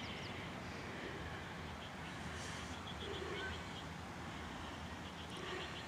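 Steady outdoor background noise with a few faint, high ticks now and then.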